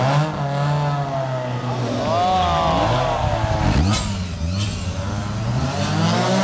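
Rally car engines revving hard and easing off through a hairpin, the pitch rising and falling. The loudest is a Lancia Delta S4 passing close by about four seconds in, with two sharp cracks as it goes past.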